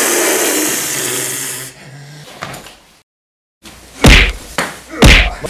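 A loud, harsh rushing noise for about a second and a half. Then, after a brief dead-silent gap, two heavy thuds about a second apart from kicks landing in a staged fight.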